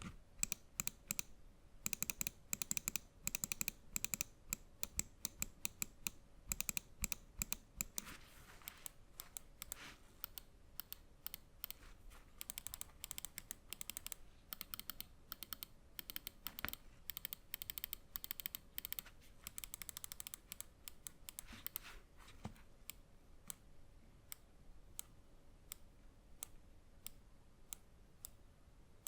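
Switches of an Epomaker Carbon X gaming mouse clicking, in rapid runs of many clicks. Near the end they slow to single clicks spaced evenly, a little under a second apart.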